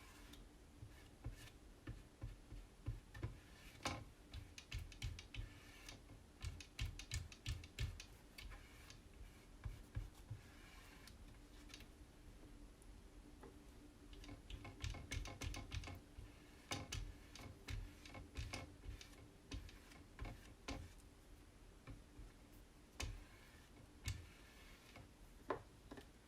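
Plastic squeegee working over a silkscreen transfer on a board: quiet clusters of short scrapes and clicks as it is drawn and pressed across the surface, with pauses between runs.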